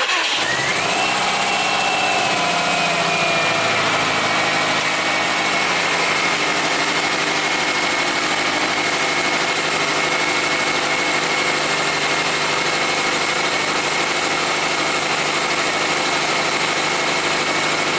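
Car engine idling steadily, with a thin high whine that rises in the first second, eases down slightly over the next few seconds and then holds steady.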